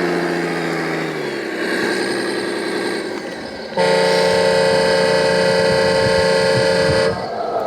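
RC truck's engine sound winding down in pitch, then a steady truck air-horn blast of about three seconds from its sound module, starting and stopping abruptly.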